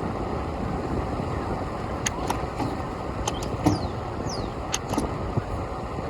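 Steady wind rumble on the microphone of a moving bicycle, with city traffic, broken by a handful of sharp clicks and two short high squeaks that fall in pitch, between about two and five seconds in.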